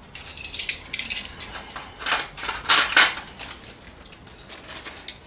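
Small metal tools and parts clinking and rattling as they are handled, a run of sharp clicks over the first three seconds, loudest between two and three seconds in, then quieter.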